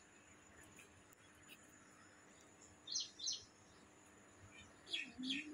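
Faint short bird chirps in quick pairs, about three seconds in and again near the end, over a quiet outdoor background.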